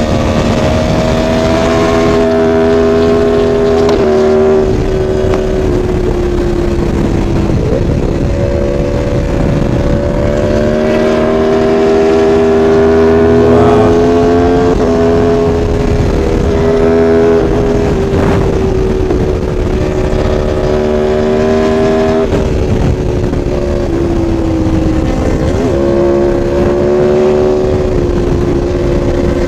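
Sport motorcycle engine running hard at highway speed, heard from the rider's onboard camera with wind rush. The engine note holds steady for stretches and drops or climbs several times as the throttle changes.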